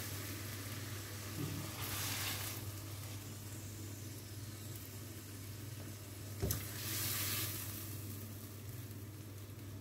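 Hot wok sizzling faintly after a stir-fry of bok choy and mushrooms, over a constant low hum. The hiss swells louder twice, about two and seven seconds in, and there is a single sharp click between the swells.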